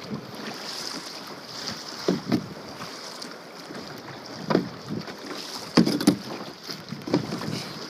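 Kayak paddle strokes splashing in seawater, coming in quick pairs every second or two, over a steady wash of wind and water.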